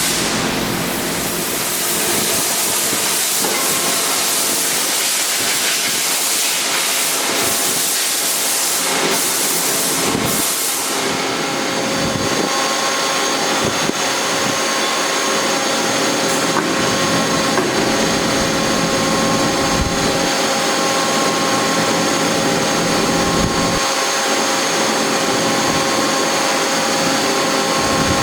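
Accurpress CNC press brake running: a loud, steady hiss for the first eleven seconds or so, then a steady machine hum with several held tones.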